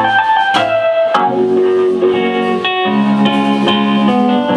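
Live rock band playing an instrumental passage, with held guitar and keyboard chords that change about a second in and again near three seconds in.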